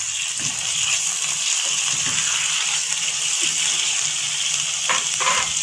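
Raw chicken strips frying in hot oil with onions and green chillies in a nonstick pan, a loud steady sizzle. A couple of plastic spatula scrapes come near the end.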